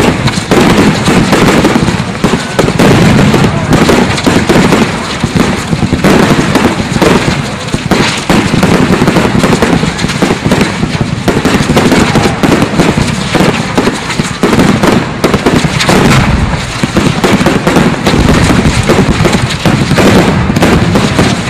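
Aerial firework display at its height: loud, rapid, overlapping bangs and bursts following one another with hardly a pause.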